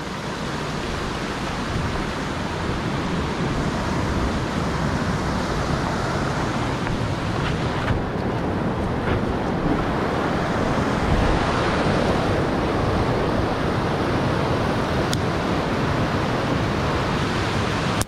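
Rushing water of river rapids tumbling over and around boulders, a steady noise that swells slightly over the span.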